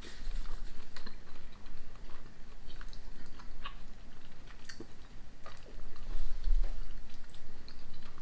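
Two people chewing thin After Eight chocolate mints, with soft scattered mouth clicks and smacks. A low rumble comes near the start and again about six seconds in.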